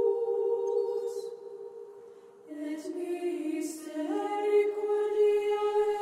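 Music score of sustained, wordless choir voices holding chords. It thins out about two seconds in, then a new chord enters and moves higher about four seconds in.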